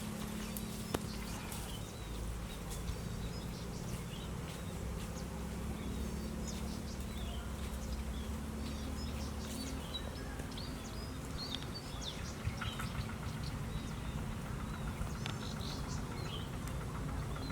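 Outdoor riverside ambience: many short, scattered high chirps from small birds and insects over a steady low hum.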